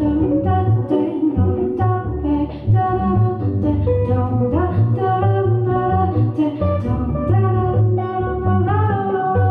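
Live jazz trio: a woman singing over a plucked upright double bass and a hollow-body electric guitar, her voice sliding between notes in places.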